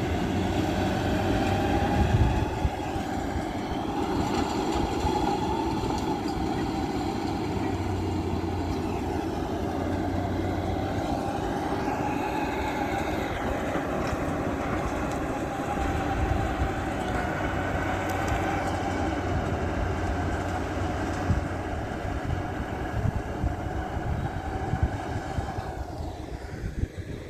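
Caterpillar D8 bulldozer's diesel engine running under load as it works the soil, its pitch rising and falling, fading somewhat near the end.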